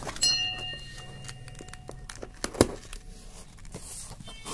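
Cardboard parcel being cut and pried open with a snap-off utility knife: scattered clicks and knocks of the blade and box, the loudest about two and a half seconds in, then a rustle of cardboard flaps near the end.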